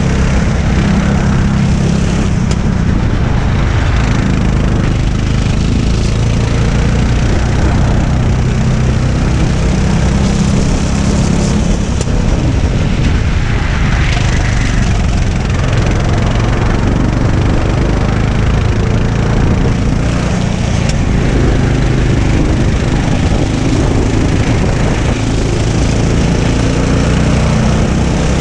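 Racing kart engine running hard at speed on track, heard onboard, its note rising and falling with throttle through the corners.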